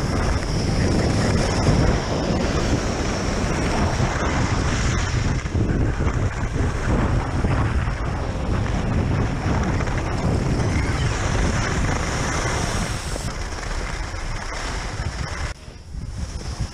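Wind rushing and buffeting over the camera microphone while skiing downhill: a steady, loud noise heavy in low rumble, dropping off sharply near the end.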